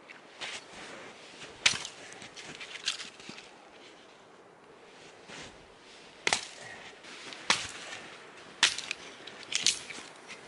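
Sharp chopping strikes at an even pace, about one every second and a bit: three strikes, a pause of about three seconds, then four or five more.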